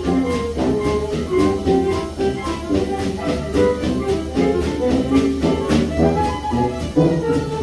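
Small band playing 1920s-style New Orleans jazz live, horn lines over a bass line and a steady drum beat.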